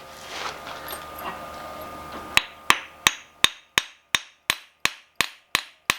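A hand-forged French peen hammer tapped in a quick, even run of about eleven strikes, roughly three a second, starting a little over two seconds in. Each tap is short, dull and dead, with no ring: the hammer's face has cracked loose after the water quench.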